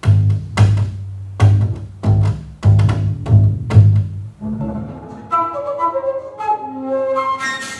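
Upright double bass playing a run of low, hard-attacked notes. About four and a half seconds in it gives way to higher held tones that step through a wandering, flute-like melody.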